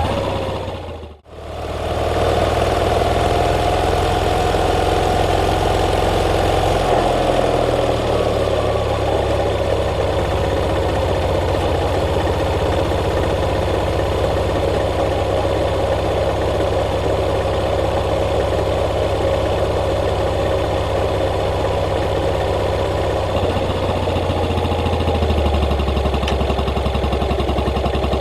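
Yamaha SR400's single-cylinder engine running steadily, its note shifting slightly now and then, with a sudden brief dropout about a second in.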